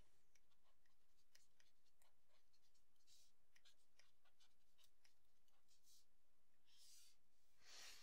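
Faint taps and scratches of a stylus writing by hand on a tablet: a string of light clicks with a few short scratchy strokes.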